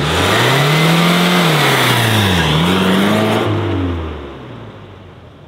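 Old pickup truck's engine revving hard as it launches with the clutch dropped for an attempted burnout: the revs climb, dip briefly about two and a half seconds in, climb again, then fade as the truck pulls away. The tires don't spin.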